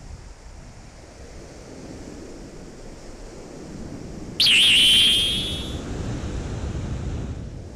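Surf washing up on a sandy beach, with wind on the microphone. About halfway through, a sudden loud high tone comes in with a quick warble, then holds and fades over about a second and a half.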